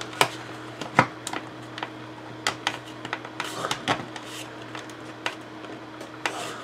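Irregular sharp clicks and knocks of hard plastic model-kit parts being forced together as a tight-fitting hull section of a tank model is wrestled into place.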